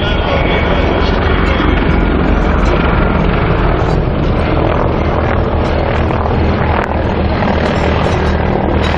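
Mil attack helicopter flying low overhead: loud, steady rotor and turbine noise with a deep beat underneath as it banks through its manoeuvres.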